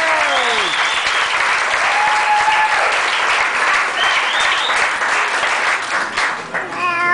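Audience applauding steadily, with scattered cheers and whoops over the clapping.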